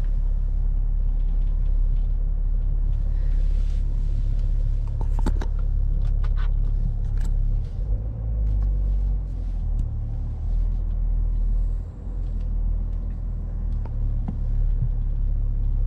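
Low, steady rumble of a BMW X5 heard from inside the cabin as it reverses slowly into a parking space on snow. A few light clicks and ticks come about five to eight seconds in, and the rumble shifts and dips briefly around eight to twelve seconds.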